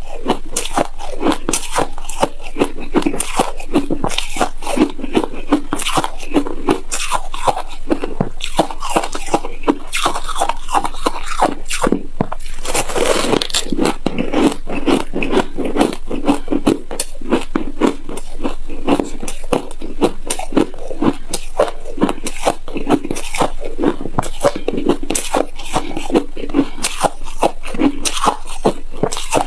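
Close-miked biting and chewing of a frosty block of shaved ice. Rapid, dense crunching and scraping go on without a break.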